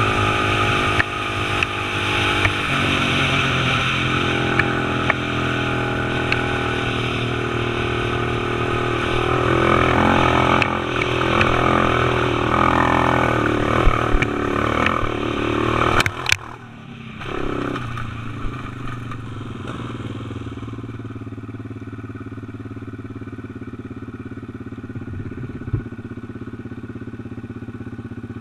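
Small quad (ATV) engine running under way, heard close up from the rider's helmet. About 16 seconds in the engine note drops off sharply, then it carries on at a lower, steadier running speed.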